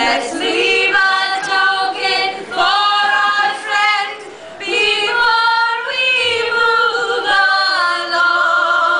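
A small group of women singing together unaccompanied in harmony, holding notes of about a second each with brief breaks between phrases.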